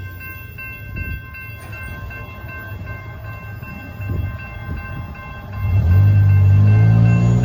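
Amtrak Texas Eagle passenger train approaching, with faint steady ringing tones over a low rumble. About five and a half seconds in, the diesel locomotive comes up loud, a deep engine drone that rises slightly in pitch as it passes close by.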